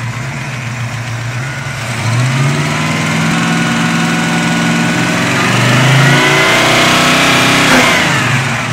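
Ford 302 (5.0 L) small-block V8 on a four-barrel carburetor idling, then revved by hand at the throttle linkage: the pitch rises about two seconds in, holds, climbs higher, then drops back to idle near the end. The owner judges it to be running pretty good, though short of full throttle.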